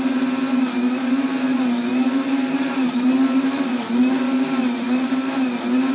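Countertop blender motor running at full speed, blending cake batter of chopped whole orange, oil, sugar and eggs: a steady hum whose pitch wavers slightly as the load churns.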